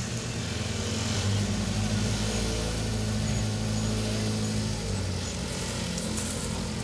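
Off-road trial vehicle's engine running under load and revving, its note rising about a second in and falling back around five seconds in.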